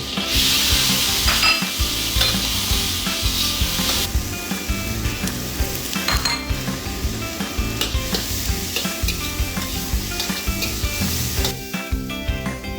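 Food sizzling as it fries in a pan, the hiss loudest for about the first four seconds, with a few sharp clicks like a spatula against the pan.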